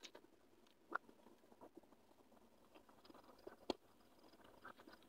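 Near silence with a handful of faint clicks and taps from a sewing machine's feed dog and shuttle mechanism being worked by hand to check its movement.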